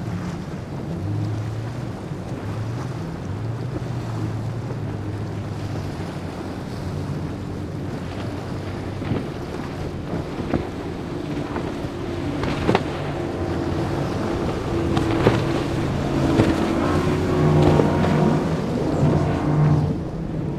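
Powerboat engines running at speed, a steady drone under the rush of wind, waves and spray. Several sharp cracks come in the second half, and the noise swells toward the end as a boat passes closer.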